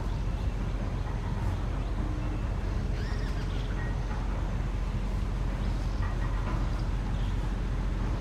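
Steady low background rumble of distant road traffic, with a few faint, short bird calls scattered through it.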